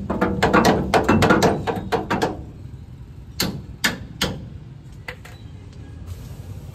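Hammer blows on metal during repair of a truck's spring hanger and pin: a quick run of about a dozen strikes, then three more spaced strikes about halfway through and a couple of light taps.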